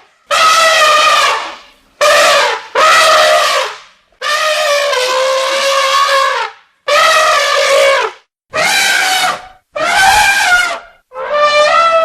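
Wild elephants trumpeting: a run of about eight loud, brassy blasts, each half a second to two seconds long with short breaks between, the longest one about halfway through.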